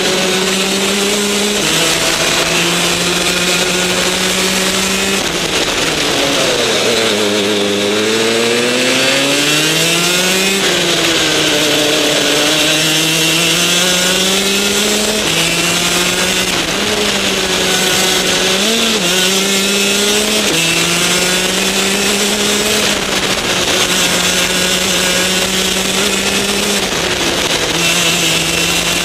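Rotax DD2 kart's 125 cc two-stroke engine running at racing speed, heard from the driver's helmet camera. Its note falls steeply and climbs back between about six and ten seconds in, and drops in short steps several more times.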